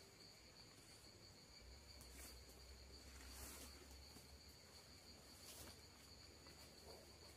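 Faint, steady, high-pitched insect chirring in the background, with a few soft rustles about two, three and a half and five and a half seconds in.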